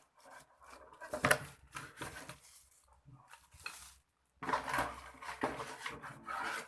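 Parts of a spiral potato cutter being handled as it is unboxed: light clatter of metal and plastic pieces with clicks and rustling, a sharp knock about a second in, and a busier run of handling near the end.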